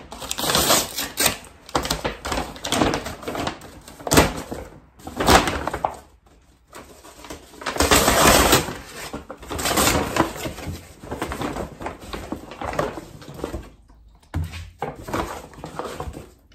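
Large paper grocery bag rustling and crinkling in bursts as it is opened and rummaged through, with a few knocks as items are taken out and set down.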